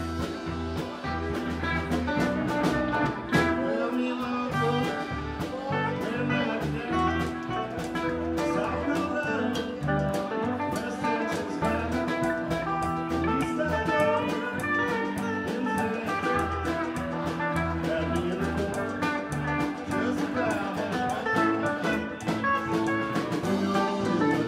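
Live band playing an instrumental passage: guitar over bass and drums, starting suddenly and then running on steadily.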